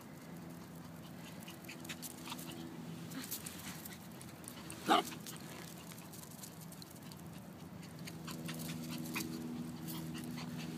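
Small black-and-white puppy gives a single short yip about five seconds in, against faint scattered ticks and a low steady hum.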